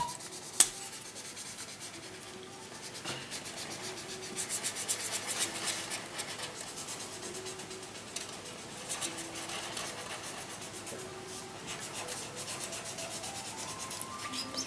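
Markers scratching on paper as children colour in: quick, repeated back-and-forth strokes, busier at times, with no pauses long enough to fall quiet.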